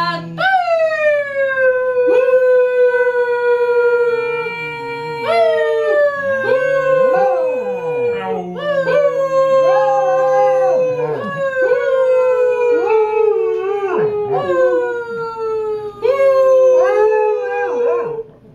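Basset hound howling: a long run of drawn-out howls, each starting high and sliding down to a held note. Lower human voices join in underneath.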